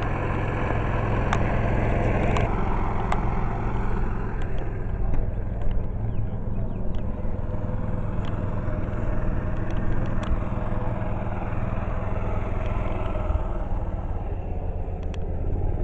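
An engine running steadily at idle, a low even rumble, with a few faint ticks on top.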